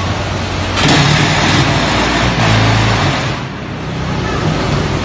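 Pallet-free concrete block making machine running: a steady low hum throughout, with a louder, hissing, rattling stretch from about one to three seconds in.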